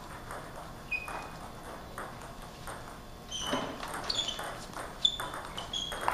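Table tennis ball hit by paddles and bouncing on a Cornilleau 740 table. There is a single ping about a second in. From about three seconds in comes a fast rally of sharp clicking hits, each with a short high ring.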